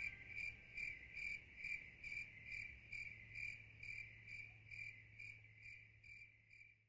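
Faint cricket chirping in an even rhythm of about two to three chirps a second, fading away toward the end over a faint low hum.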